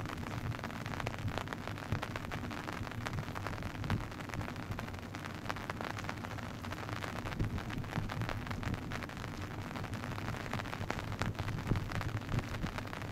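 Wind buffeting the microphone: a rough, steady rumble and hiss with small crackles throughout, and a faint low hum underneath.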